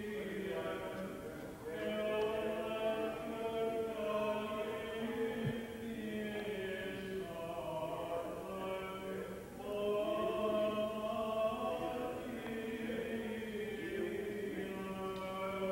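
Byzantine liturgical chant sung by voices in slow, held notes over a steady low sustained note.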